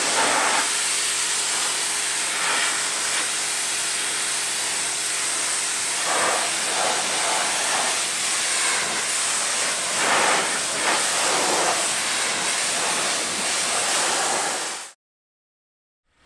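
High-pressure water jet from a pressure washer lance hissing and splashing against a car's front bumper, with a steady motor hum underneath. It cuts off suddenly about a second before the end.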